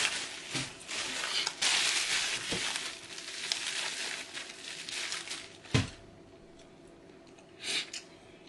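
Thin clear plastic bag crinkling and rustling as a hand handles it and reaches into it, with a single sharp knock about two thirds of the way through.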